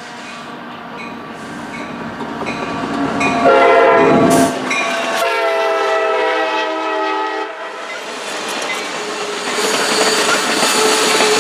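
Amtrak Piedmont diesel locomotive passing close by with its horn sounding; the horn grows louder and drops in pitch about four seconds in as the locomotive goes by, and sounds again until about seven seconds in. The passenger cars then rumble and clatter past on the rails.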